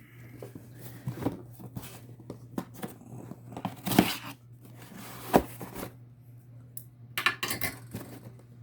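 A Loot Crate cardboard box being opened: tape tearing and packaging rustling, with several sharp knocks.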